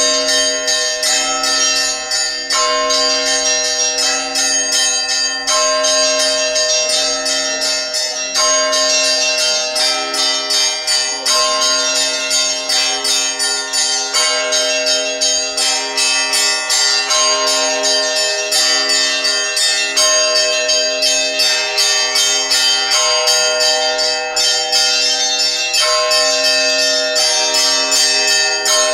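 Russian Orthodox church bells being rung together: quick, continuous strikes over several bell tones sounding at once, in a pattern that repeats about every three seconds.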